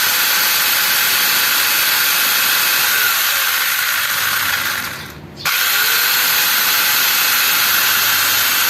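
Angle grinder fitted with a chainsaw adapter running free, the chain spinning around the bar with a steady, loud, dense whirr. About five seconds in it winds down and cuts out for a moment, then runs back up to full speed.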